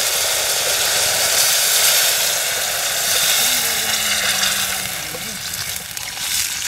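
Water poured from a plastic mug into a steel pot of frying meat curry over a wood fire, hissing and sizzling as it meets the hot pot and oil.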